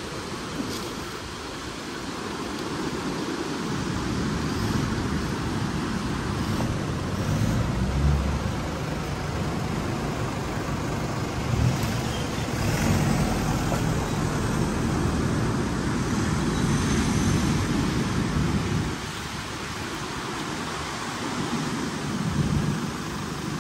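Engines of Toyota Hilux pickup trucks crawling one after another over a sandy, root-strewn bump. The engine noise builds over the first few seconds, drops briefly about 19 seconds in, and rises again near the end as the next truck climbs.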